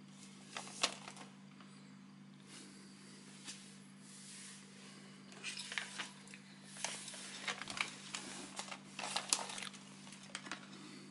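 Plastic sheeting crinkling and rustling in irregular bursts as hands move over it, handling a small fan and its wires; the crackling is thickest in the second half.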